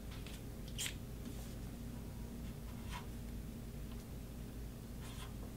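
Pen writing on a small yellow note pad: a few short, faint scratching strokes over a low room hum.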